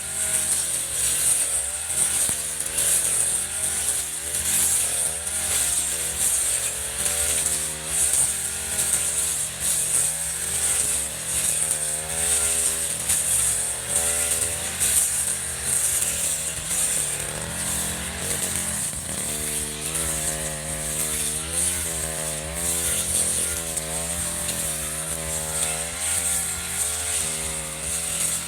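Echo RM-435 two-stroke brush cutter engine running continuously, its pitch wavering slightly up and down.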